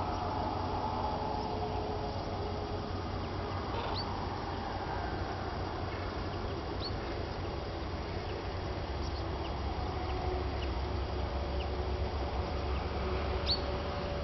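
Common cranes calling faintly in the distance over a steady low rumble. A few short, high, falling chirps from small birds come about four seconds in, about seven seconds in, and near the end.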